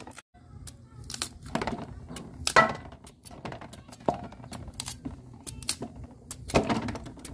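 Cleaver chopping chunks off a peeled papaya held over an aluminium basin: irregular knife strikes and pieces dropping into the metal basin, with the loudest knocks about two and a half seconds in and near the end.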